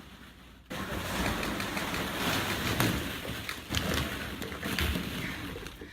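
Plastic ball-pit balls rustling and clattering as a dog moves through them, starting suddenly about a second in, a dense rush with many small clicks.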